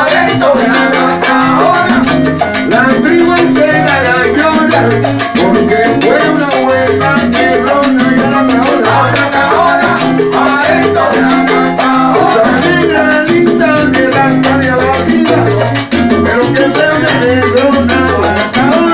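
A salsa band playing live, with congas, timbales and maracas over a stepping bass line, and a chorus of voices singing into microphones.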